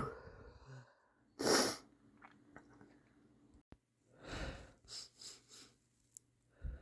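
A person's sniffly sneezing: the tail of a strong sneeze fades right at the start, and another sharp sneeze comes about a second and a half in. A breath follows near the middle, then a few quick short sniffs.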